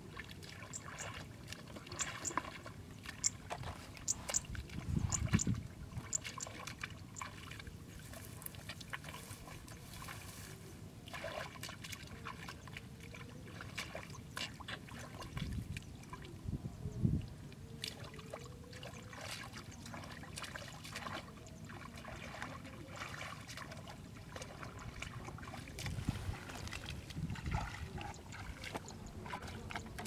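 Hands groping in shallow muddy water, with irregular small splashes, sloshing and squelches of mud, and a few low thuds.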